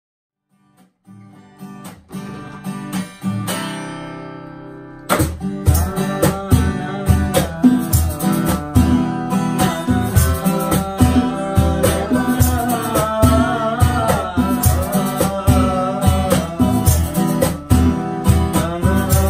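Small acoustic group playing a slow Sinhala song: acoustic guitar picks a quiet intro and lets a chord ring out, then about five seconds in the full group comes in with strummed acoustic guitars, bongos and tambourine keeping a steady beat, and men's voices singing the melody.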